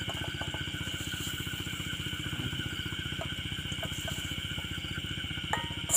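A small engine running steadily with a fast, even throb, under a steady high-pitched whine. Near the end a metal serving spoon clinks a couple of times against the metal wok.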